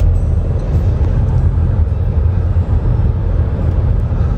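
Steady low rumble of a small car driving along a road, heard from inside the cabin: engine and tyre noise with no change in speed.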